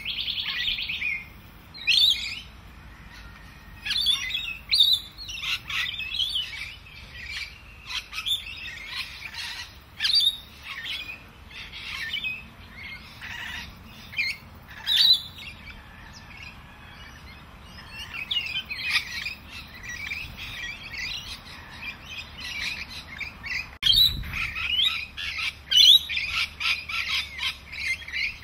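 Birds chirping and calling, many short calls one after another, with a thinner stretch just past the middle.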